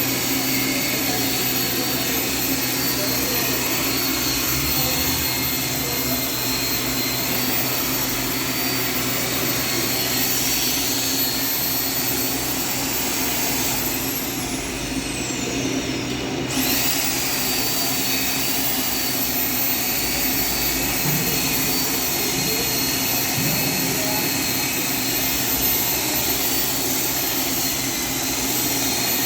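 Electric sander running steadily with a high motor whine; about halfway through the motor winds down for a couple of seconds, then quickly speeds back up and runs on.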